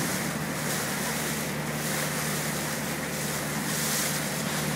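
Speedboat's engine running steadily at cruising speed, with the rush of water from the hull and wake and wind on the microphone.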